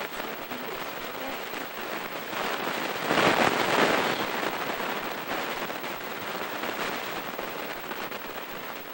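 Wooden runner sled sliding and scraping over packed snow, a noisy hiss that swells to its loudest about three seconds in as the sled comes close and then fades as it slows to a stop.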